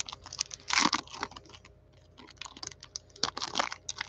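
Plastic cello pack wrapper crinkling and trading cards clicking against each other in gloved hands as a pack is torn open and the cards come out. It is a run of crisp crackles and clicks, loudest about a second in and again past three seconds.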